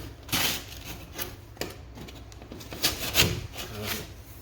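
Utility knife scoring and cutting across a piece of drywall in several uneven scraping strokes. The loudest strokes come about three seconds in.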